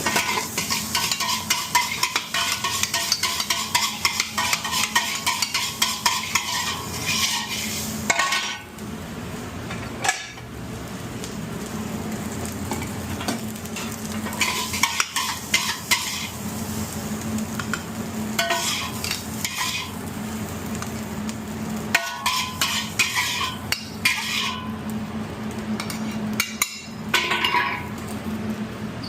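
Stir-frying: a spatula scraping and tossing food in a hot, sizzling pan, in a long bout at first and then several shorter bouts with pauses between. A steady low hum runs underneath.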